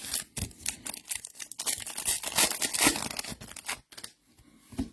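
Foil trading-card pack wrappers being torn open and crinkled by hand: an irregular crackling with sharp snaps for about four seconds, then a pause and one brief crinkle near the end.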